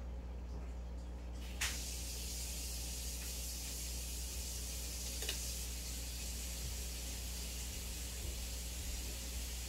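Aquarium air system running: a steady low hum with the hiss of air bubbling through sponge filters. A sharp click comes about a second and a half in, after which the hiss is louder, and there is a faint tick a few seconds later.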